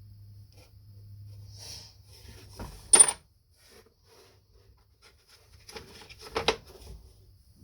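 Metal clinks of steel sockets being handled and tried on a nut: one sharp ringing clink about three seconds in, then a quick cluster of smaller clinks about six seconds in.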